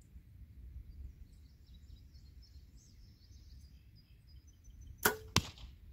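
Compound bow shot: a sharp crack of the string release about five seconds in, followed a third of a second later by a second sharp knock as the arrow strikes the target. Birds chirp faintly before the shot.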